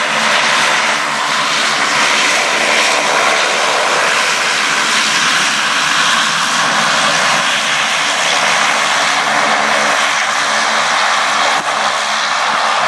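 Dornier 228 twin turboprop engines running on the runway: a loud, steady whine and rush with an even propeller hum beneath.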